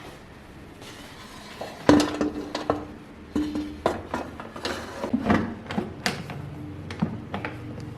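Metal air fryer pan clanking and knocking as it is handled and set into the air fryer: a string of sharp clinks and knocks, a few ringing briefly, the loudest about two seconds in.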